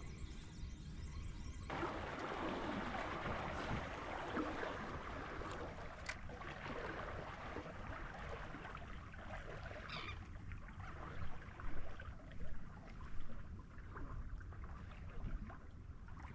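Water lapping and sloshing against the hull of a small fishing boat, a steady watery hiss with a few brief louder moments about two-thirds of the way through.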